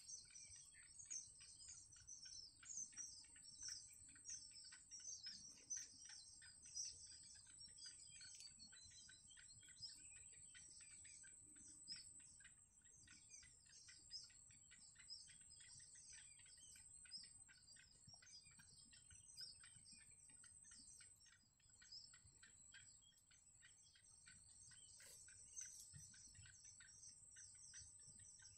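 Faint, rapid high-pitched bird chirping that keeps going without a break, over a steady high insect trill.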